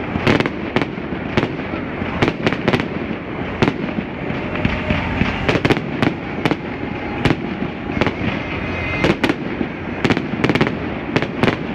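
Low-altitude fireworks going off in a rapid, irregular volley of sharp reports that echo between the city buildings.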